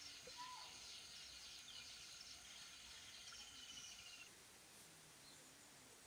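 Faint outdoor ambience of birds chirping and insects, with a short whistled note about half a second in and a rapid high trill near the middle; the chirping thins out after about four seconds.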